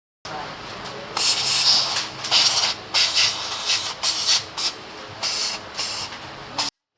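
Compressed air hissing in a string of short, uneven blasts over a lower steady hiss, then cutting off abruptly near the end.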